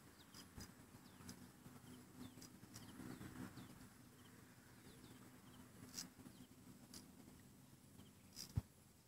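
Near silence: faint outdoor ambience with a low steady hum, scattered soft clicks and one sharper click near the end.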